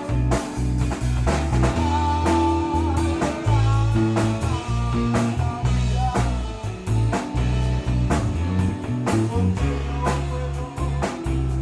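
Rock band playing with guitars, bass guitar and drum kit: steady drum beats under held bass notes, with a guitar line holding a wavering note about two seconds in.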